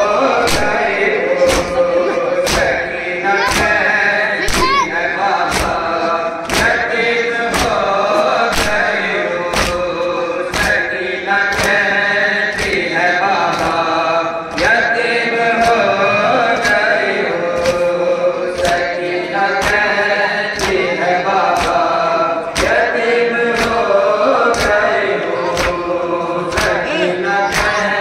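Men chanting a nauha, a mourning lament, in unison, with a sharp, even thump about once a second from rhythmic chest-beating (matam).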